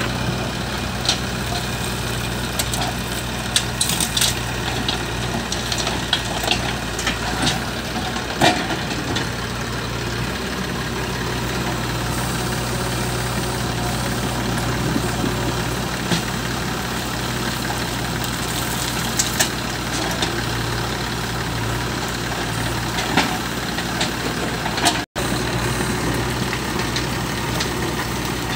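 Diesel engine of a JCB 3DX backhoe loader running steadily as it digs and loads soil, with sharp knocks now and then.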